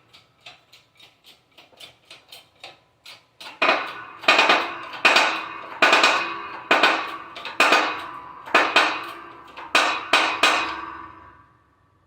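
Hammer striking a bearing driver to press a carrier bearing onto a new posi differential carrier for a Chevy 10-bolt rear end. A run of light taps comes first, then about nine heavy metal-on-metal strikes, less than a second apart, each ringing. The ring dies away near the end.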